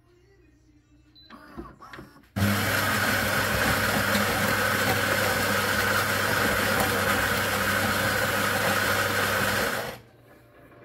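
Philips LatteGo 5400 bean-to-cup espresso machine starting a drink: a short mechanical whirr from the machine, then its ceramic burr coffee grinder running loud and steady for about seven seconds before cutting off abruptly.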